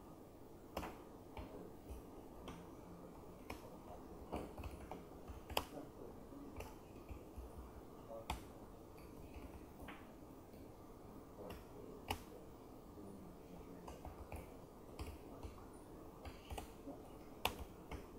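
Typing on a laptop keyboard: quiet, irregular key clicks with a few louder taps, over a steady low room hum.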